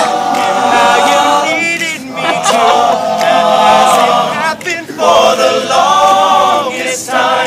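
An a cappella vocal group singing in close harmony, with sustained chords in phrases broken by short pauses.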